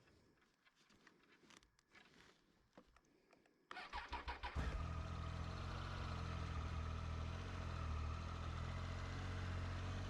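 Triumph Tiger 800 XC's three-cylinder engine being started: about four seconds in the starter cranks briefly, the engine catches, and it settles into a steady idle.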